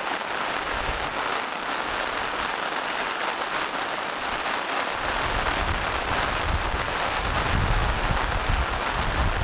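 Steady rain falling on forest leaves and rocks: a dense, even hiss. About halfway through, a low rumble joins it.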